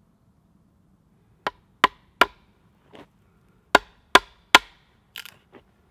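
A wooden baton striking the spine of a knife driven into a birch log (batoning). It comes as two quick runs of three sharp knocks, each a little under half a second apart, with a lighter knock between the runs and softer ones near the end.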